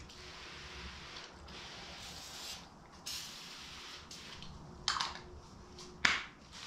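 Aerosol can of Easy-Off oven cleaner hissing in a few short sprays, with two short, sharper sounds near the end.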